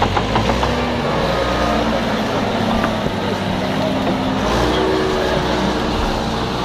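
Backhoe loader's diesel engine running close by. Its pitch rises about four and a half seconds in as it revs.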